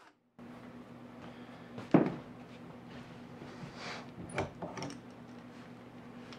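Tool-handling sounds: one sharp knock about two seconds in, then a few light metallic clicks and clatters as a bar clamp is loosened and an aluminium drill-guide block is lifted off the wooden neck heel, over a faint steady hum.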